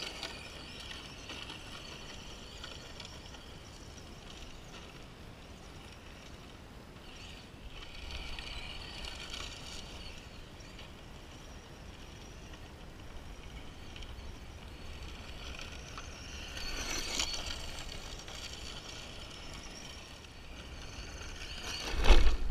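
Arrma Senton 4x4 Mega short course RC truck driving on loose gravel: its brushed electric motor and tyres on gravel rise and fall as it moves nearer and farther. Near the end it comes right up to the microphone in a sudden loud burst.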